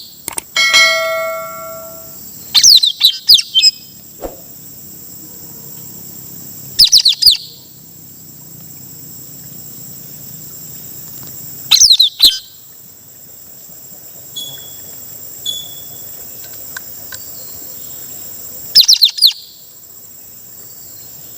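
Caged decoy puling bird calling in loud bursts of rapid, downward-sweeping high notes, five times a few seconds apart, over a steady high-pitched insect drone. A brief ringing tone sounds just after the start, and faint short high notes come in the middle.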